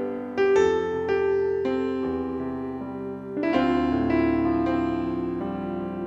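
Background piano music: slow, gentle notes and chords struck and left to ring, with a fuller chord about three and a half seconds in.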